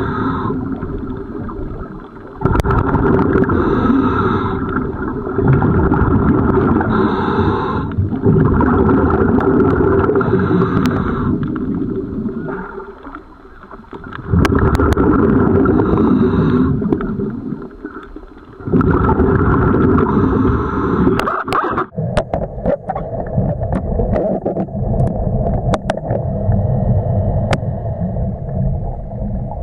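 Scuba regulator breathing heard underwater: breath after breath of exhaled bubbles rumbling and gurgling, with a short hiss from the regulator on each inhale. From about 22 seconds in the breathing gives way to steadier, quieter water noise with scattered sharp clicks.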